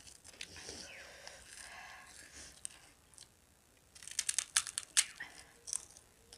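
Crunching bites into a crisp fried puffed 'gol finger' snack: soft chewing and rustling, then a quick run of sharp crackly crunches about four seconds in.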